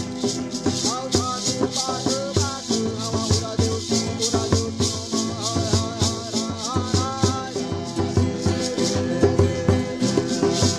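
Music with a maraca-like shaker keeping a steady beat of about two or three strokes a second over low sustained notes, with a wavering melody line in the first part.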